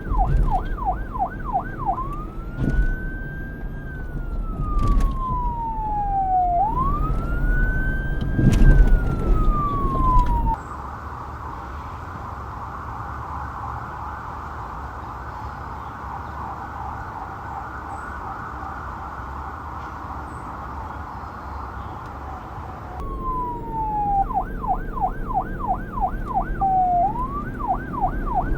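Electronic police siren cycling through its tones: a fast yelp, then two slow wails that rise and fall. About ten seconds in it cuts suddenly to a quieter, steady, high-pitched hiss-like band. Near the end the wail and the fast yelp come back, over a low rumble.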